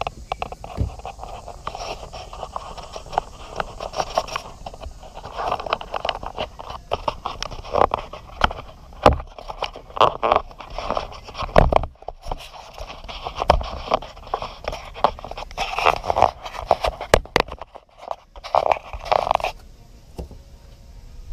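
Close, irregular scraping and rubbing with many sharp clicks and knocks: handling noise while working around a jet ski's open engine bay.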